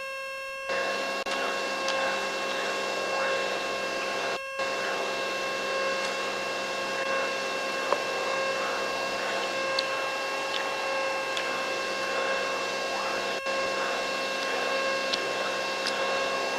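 Mooney 231's turbocharged six-cylinder engine and propeller at climb power, heard inside the cabin as a steady drone with several fixed tones over a rushing noise. The sound briefly cuts out about four and a half seconds in.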